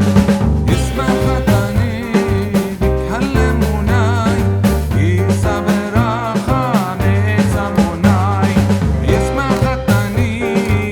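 Background music with a steady beat, a guitar and a wavering melody line that may be a singing voice.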